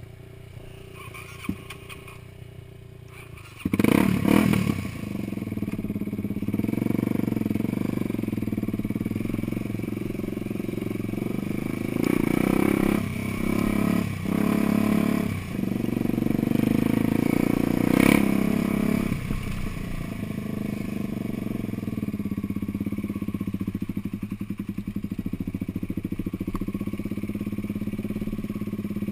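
Off-road vehicle engine driving along a rough trail. It comes in loud about four seconds in with knocks and clatter, then runs steadily, with the revs rising and dipping briefly in the middle and a sharp knock partway through.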